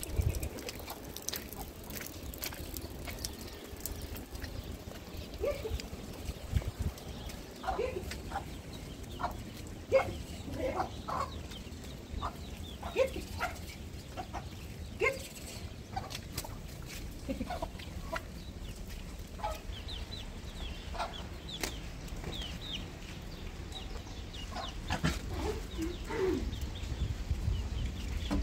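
Chickens clucking, many short calls scattered through, over a steady background noise.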